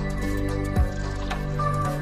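Background music: sustained tones over a slow, deep beat, with one heavy low thump about a second in.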